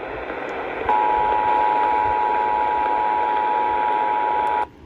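Emergency Alert System two-tone attention signal, two steady pitches (853 and 960 Hz) sounding together over a hiss of radio static. It starts about a second in and cuts off abruptly shortly before the end. It is the alert tone of a Required Monthly Test broadcast.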